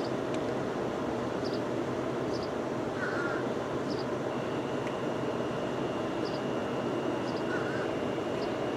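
Steady outdoor hum of distant road traffic, with small birds chirping and a louder bird call twice. A thin, steady high tone comes in about halfway through.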